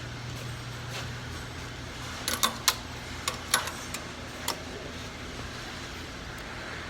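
Loose shock absorber mounting under a Ford Expedition being worked by hand, giving a quick series of five or six sharp metallic clicks and knocks in the middle, over a steady low hum. The sound comes from a mounting that was not tightened, the cause of the vehicle's clunk over speed humps.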